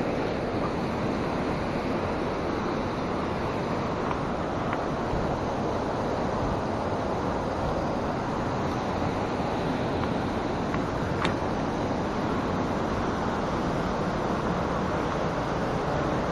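Steady rushing of a fast-flowing hill stream, with one faint click about eleven seconds in.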